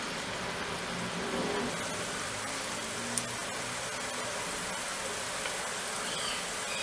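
Moong dal pakodas deep-frying in hot oil: a steady sizzle of bubbling oil, with a single light click about three seconds in.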